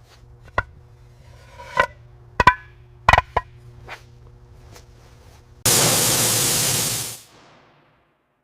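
Several short, sharp tool knocks and clinks over a low steady hum, then a loud hiss lasting about a second and a half that fades out.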